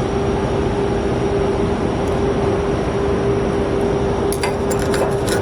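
Steady loud machinery hum of a welding shop with one constant tone running through it. Near the end come a few light metallic clinks, the kind made when a welded steel test piece is handled.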